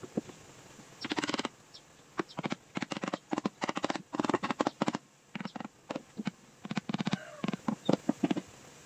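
A hammer tapping and driving nails into a plywood box panel, in quick bursts of many strikes with short pauses between them.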